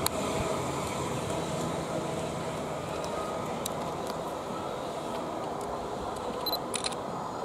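Class 450 Siemens Desiro electric multiple unit pulling away from the platform, its running noise fading steadily as it draws off down the line. A few light clicks come near the end.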